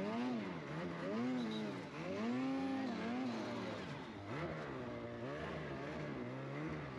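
Snowmobile engine revved up and down over and over, its pitch rising and falling about once a second, as the sled churns, tipped and stuck in deep powder snow.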